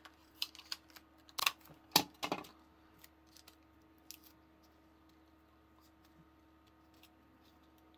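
Hands handling cut paperboard pieces and Scotch tape: a few sharp crinkles and taps in the first two and a half seconds, the loudest about two seconds in, then only a faint steady hum.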